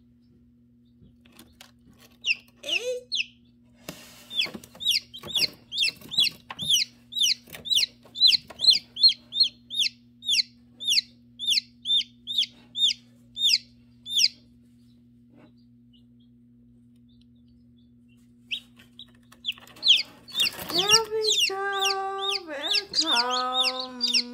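Newly hatched chicks peeping: a run of short, high, falling peeps, about two or three a second, for some ten seconds, then a lull, then louder peeping mixed with lower, drawn-out calls near the end. A steady low hum lies under it all.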